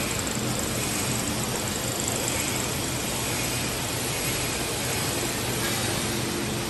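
Candy demoulding line machinery running: conveyor and brush-roller drive motors giving a steady whirring rush with a low hum underneath.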